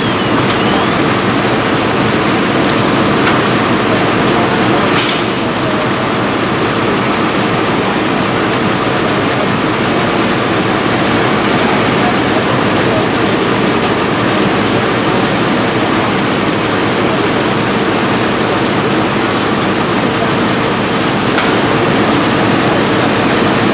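Steady loud drone of fire apparatus engines and pumps running, with a faint steady whine in it. A brief hiss about five seconds in.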